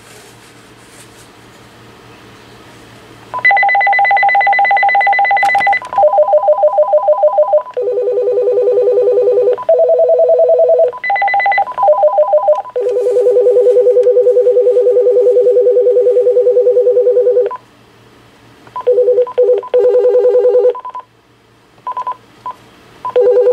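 Base unit of a Uniden Loud & Clear DECT 6.0 cordless phone playing its electronic ring tones one after another, pretty loud. They start a few seconds in, each a different repeating trill or warble, with short pauses between them as the next tone is selected.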